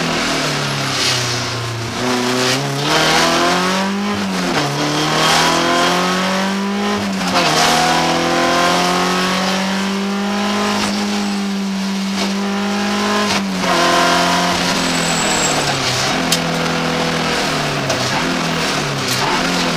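BMW 318iS rally car's four-cylinder engine driven hard, heard from inside the cabin: revs climb and drop repeatedly with gear changes and lifts, and are held high and steady for several seconds in the middle before falling away and rising again.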